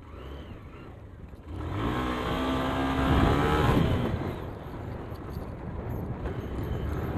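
Hero Karizma ZMR motorcycle's single-cylinder engine running on a steep dirt descent. It gets much louder about a second and a half in, revving up with a slight rise in pitch, then eases back.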